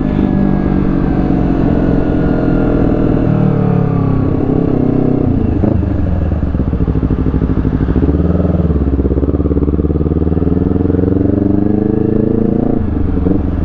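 Honda CBR250RR parallel-twin engine running through a Villan Z2 carbon aftermarket exhaust while riding. The revs fall over the first few seconds, then climb steadily from about eight seconds in and drop suddenly near the end at a gear change.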